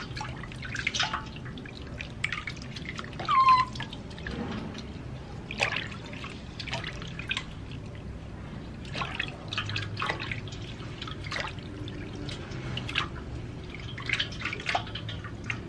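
Bathwater splashing and dripping in a stainless steel basin as hands scoop and pour it over two baby monkeys, in small irregular splashes and drips. A brief high squeak about three seconds in.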